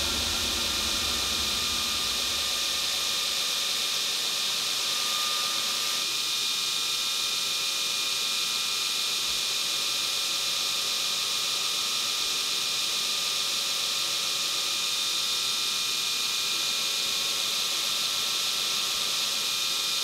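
Belt grinder running with a steel sword blade pressed against its small contact wheel, grinding the fullers: a steady high hiss with a few thin steady tones.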